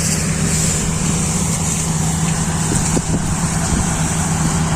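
Kubota DC-35 combine harvester's diesel engine running steadily, a constant low hum with an even hiss of machinery above it.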